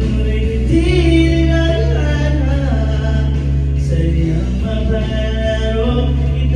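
A man singing karaoke into a microphone over a backing track, the accompaniment holding long, steady bass notes under the melody.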